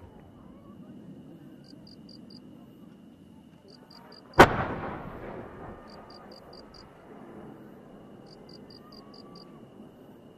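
A single loud firecracker bang about four seconds in, its echo dying away over a second or so.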